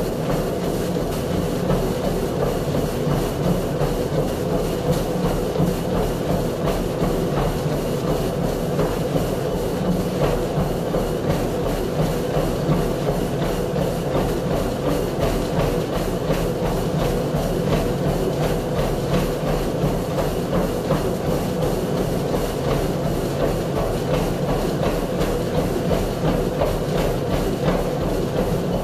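Motorised treadmill running under a jogger: a steady motor and belt hum with her footfalls striking the belt in a quick, even rhythm.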